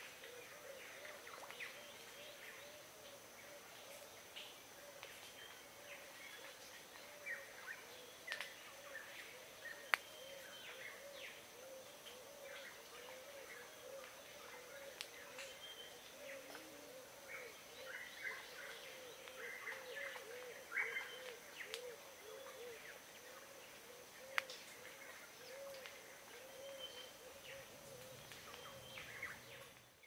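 Tongan birds calling: a low rising-and-falling note repeated two or three times a second throughout, with many short high chirps scattered over it and a thin steady high tone. A couple of sharp ticks stand out.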